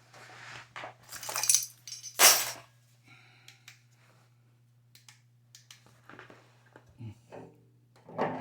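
Metal water-heater parts scraping and clinking against each other, with one sharp clank about two seconds in, followed by a few light clicks.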